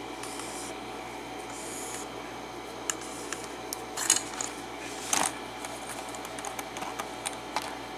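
Scattered light clicks and taps of a lock and small metal tools being handled in a bench vise, with a short cluster about four seconds in and another about five seconds in, over a steady low background hum.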